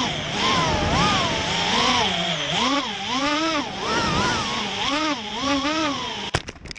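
FPV racing quadcopter's brushless motors and propellers whining over a steady hiss, as heard by the onboard camera, the pitch rising and falling quickly with each throttle punch and turn. Near the end the whine stops abruptly and a few sharp knocks follow.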